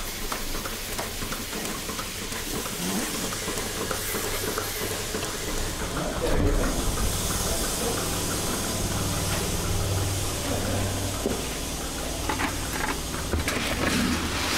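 Goat milking machine running: a steady hiss of vacuum and air through the milking cups, with small clicks, and a low hum that grows louder about six seconds in.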